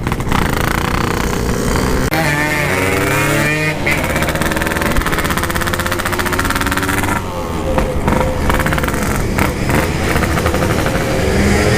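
Yamaha RX-King's two-stroke single-cylinder engine running under way through an aftermarket PK 3 packing-power exhaust, its pitch rising and falling as the throttle is worked, most clearly between about two and four seconds in.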